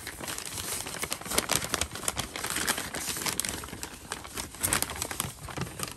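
Packaging crinkling and rustling as it is handled, with irregular small crackles and clicks throughout.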